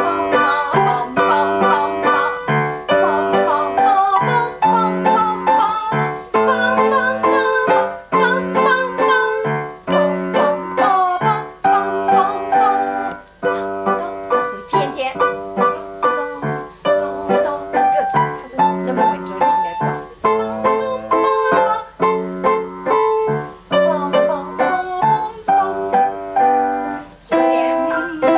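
Piano four-hands duet on an upright piano: a steady, rhythmic piece of repeated notes and chords played by two players at one keyboard, with short breaks between phrases.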